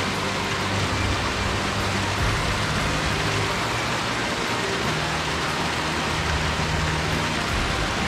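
Headwater mountain stream flowing, a steady rush of water with a low burble underneath; its flow is up after the previous day's rain.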